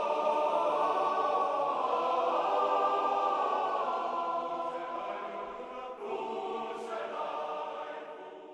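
A choir singing long held chords that fade out toward the end, with a brief break about six seconds in.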